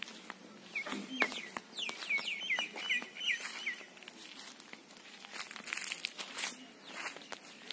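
A bird calling a rapid run of short falling chirps for about three seconds in the first half, over footsteps crunching on a gravel path.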